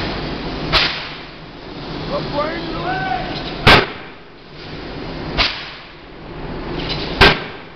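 Large industrial forging hammer striking red-hot steel in its dies: four heavy, sharp blows a couple of seconds apart, the second and fourth loudest, over a steady factory hum.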